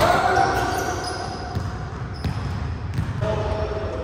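A basketball dunked through the hoop with a sharp hit on the rim right at the start, then the ball bouncing on the gym floor.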